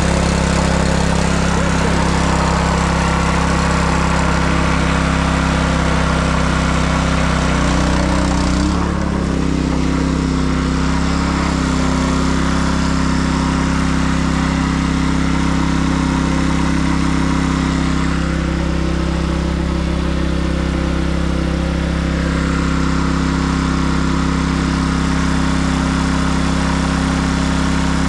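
Honda petrol water pump's small four-stroke engine running steadily while pumping water from a stream; its note shifts slightly and drops a little in level about nine seconds in.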